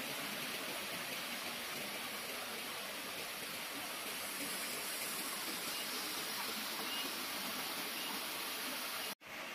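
Steady outdoor ambience: an even rushing hiss, with a few faint short high chirps about seven seconds in. It cuts out for an instant near the end.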